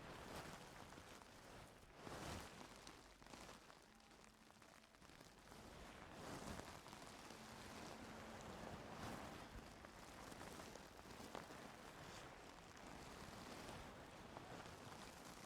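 Faint scratching and rustling of ear-cleaning tools working in an ear canal, coming in soft swells of a second or so.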